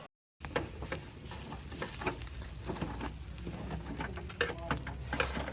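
Seekh kebabs sizzling on a barbecue grill, with many irregular crackles and pops from the cooking meat and fat.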